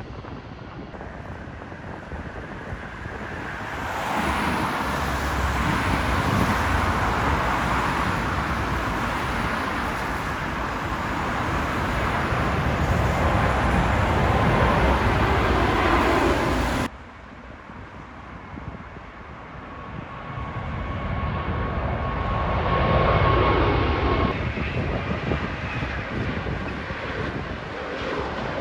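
Jet airliner engines rushing past, building to a peak, then cutting off abruptly about 17 seconds in. A second airliner then approaches and passes, its engine noise swelling again with a steady high whine over the rumble.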